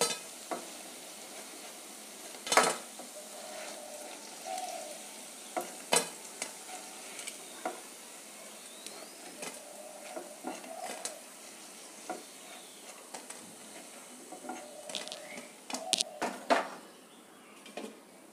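Hot oil sizzling in a kadhai as golden-brown fried fara pieces are lifted out with a spatula. Now and then the spatula knocks sharply against the pan.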